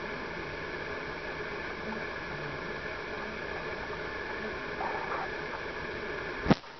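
Steady hiss with a few faint steady tones in it, broken near the end by one sharp click, the loudest sound, after which the hiss drops away.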